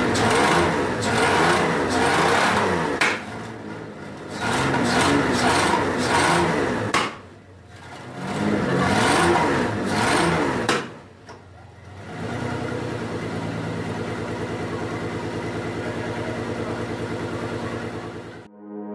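BMW V12 engine running out of the car with its exhausts fitted, revved up and down in three bursts and then settling to a steady idle. The sound cuts off abruptly near the end.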